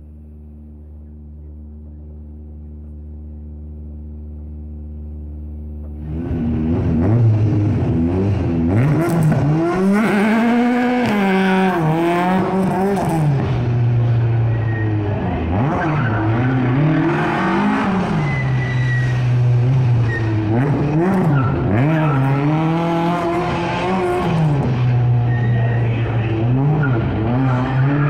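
A steady, swelling drone gives way abruptly about six seconds in to the Hoonigan Mk2 Ford Escort's Millington 2.4-litre four-cylinder engine, driven hard on a tight autocross course. The revs climb and fall over and over through the corners and shifts, with brief tyre squeals at times.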